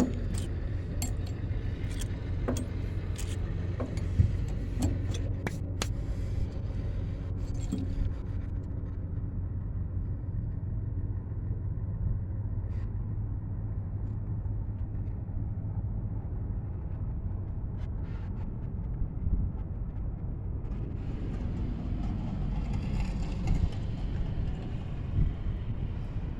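Metal clinking and clicking, like tools or loose metal parts being handled, over a steady low machine rumble. The clicks come often in the first several seconds, then thin out; a rougher scraping noise rises about three-quarters of the way through.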